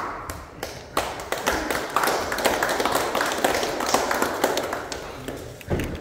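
Scattered applause from an audience of schoolchildren, many uneven claps that ease off near the end.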